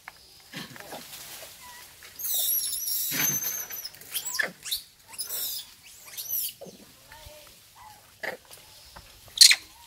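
Macaques calling in the trees: a series of short squeaks and grunts, with a louder, longer high squeal about two to four seconds in and a sharp shrill call near the end.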